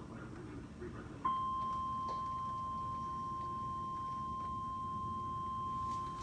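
Emergency alert attention tone from a broadcast: a single steady beep at about 1 kHz that switches on about a second in and holds, announcing a tornado warning.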